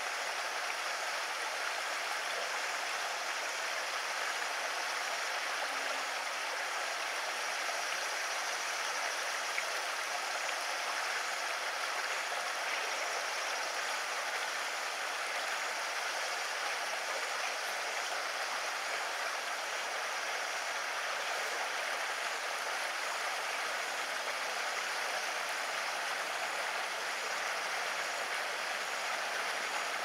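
Steady rush of flowing water, even and unbroken throughout.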